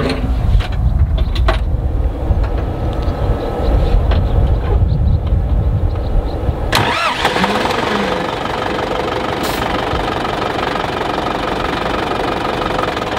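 Zetor 8441 Proxima tractor's four-cylinder diesel engine being started: an uneven low rumble, then a sudden change about two-thirds of the way in as the engine catches, after which it runs at a steady idle.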